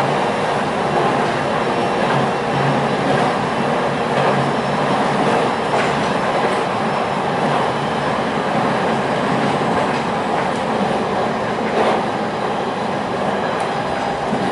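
Electric train running at speed, heard from inside the passenger car: a steady rumble of wheels on the rails with a few faint clicks over rail joints.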